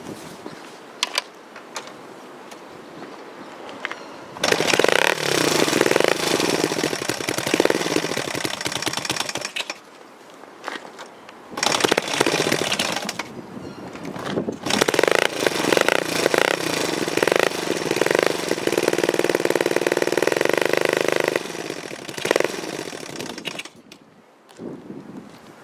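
Honda AB27 Monkey's small single-cylinder four-stroke engine running, quieter at first, then loud in three stretches about five seconds in, twelve seconds in and fifteen seconds in, the last held steady before easing off. The engine makes a loud abnormal noise, a rapid knocking clatter, which the owner wants diagnosed.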